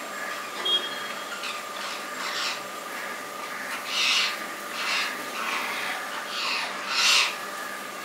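Rose-ringed parakeets giving a series of short, harsh squawks, the loudest about halfway through and near the end.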